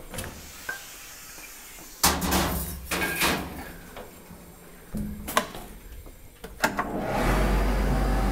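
Metal clunks and rattles at a Cuyson Euroblast 6 media-blasting cabinet as its side door is worked and parts are handled, loudest about two and five seconds in. About seven seconds in, the cabinet's machinery starts and runs with a steady low hum.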